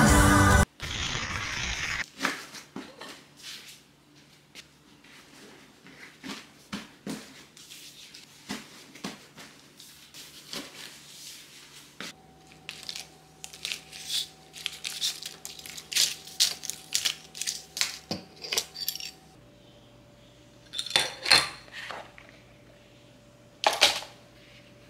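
Items being handled while packing: clothes and small things put into a suitcase, and plastic medicine packets and blister packs set down and shuffled, giving an irregular run of light clicks, taps and crinkles. Loud concert music cuts off just at the start.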